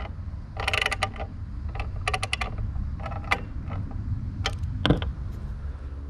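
Small quarter-inch socket ratchet clicking in short runs as it loosens the screw on a spa pump motor's rear end cap, with a few single clicks later on.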